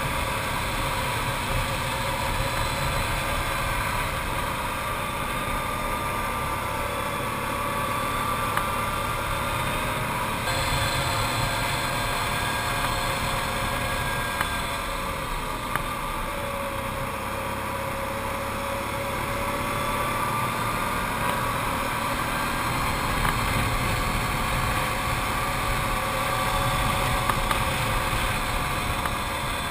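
Arctic Cat TRV 1000 ATV's V-twin engine running steadily on the ride uphill, its pitch drifting slowly up and down.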